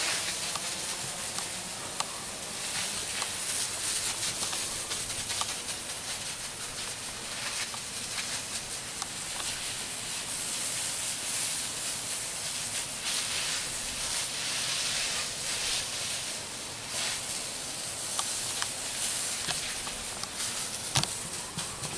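Steady spray of water and cleaning solution from a soft-wash nozzle onto clay barrel roof tiles, swelling louder at times as the stream moves.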